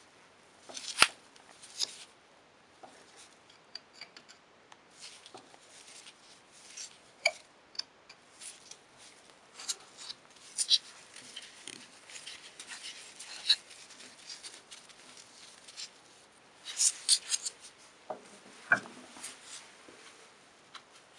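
Screwdriver turning the rusted pivot screw of jammed vintage scissors: irregular metal clicks, scrapes and short squeaks as the screw works loose, with a sharp click about a second in and a quick run of clicks near the end.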